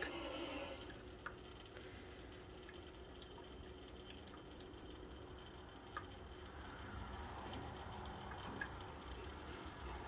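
A young cat licking water from a wet hand: a few faint, soft wet clicks over quiet room noise.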